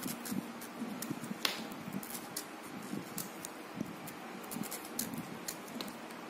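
Small carving knife nicking into firm watermelon rind: a scatter of short, crisp ticks, the sharpest about one and a half seconds in, over a faint low hum.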